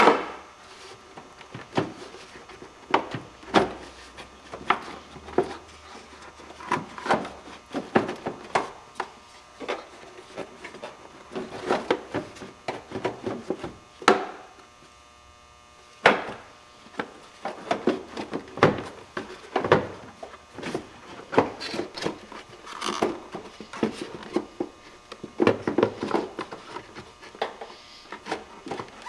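Plastic air cleaner housing and intake tube being unclipped and pulled apart by hand: an irregular run of clicks, knocks and rubbing. Near the end the panel air filter is lifted out of the box.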